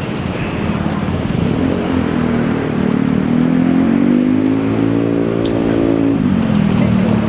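A vehicle's motor running over a steady low rumble. Its pitch rises from about two seconds in, then drops away about six seconds in.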